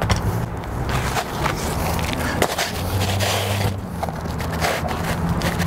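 An asphalt shingle being slid and pushed into line on the roof: a gritty scraping, with a faint knock about two and a half seconds in, over a steady low hum.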